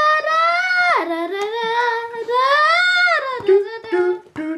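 A high voice singing long, drawn-out notes that slide up and down, with a sharp drop about a second in and another rise and fall near the end.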